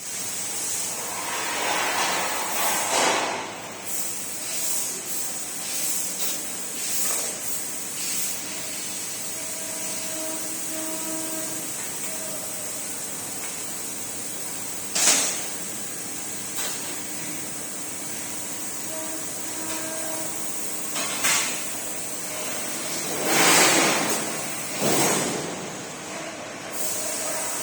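Workshop machinery noise: a steady hiss with a faint intermittent hum, broken by several louder rushing hisses and a sharp clack about halfway through.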